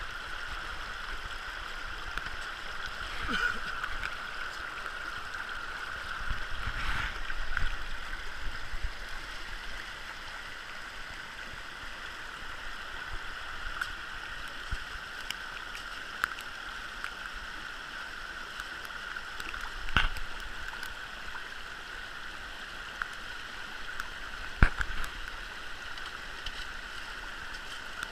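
Mountain stream water rushing steadily over rocks and through a sluice box's riffles. A couple of sharp knocks come in the second half.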